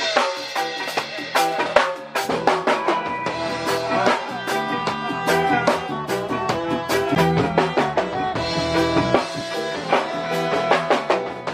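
A band playing a song: drum kit keeping a steady beat of hits and cymbals, with electric bass, electric guitar and saxophone.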